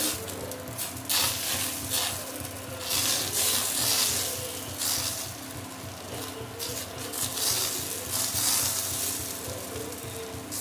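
Dosa batter sizzling on a hot roti tawa while a steel ladle spreads it in circles, with the hiss and the ladle's scrape swelling and fading again and again.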